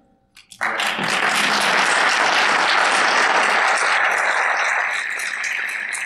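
Audience applauding. It breaks out suddenly about half a second in, holds steady, then eases toward the end.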